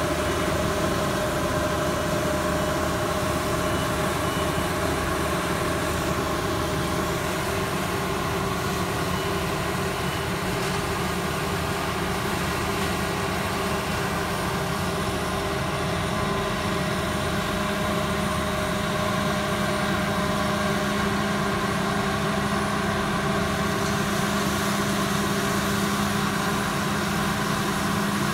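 Combine harvester engine running steadily with a constant drone and whine while it works the field.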